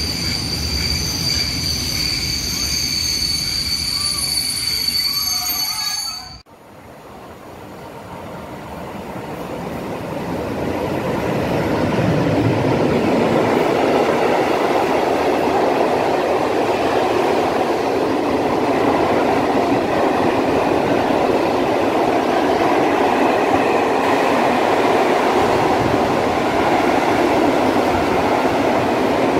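Freight wagons squealing steadily and high-pitched as a train of hopper wagons rolls slowly into the station. After a sudden cut, a long freight train of open coal wagons rolls past the platform: the rolling noise builds over several seconds, then runs steady and loud.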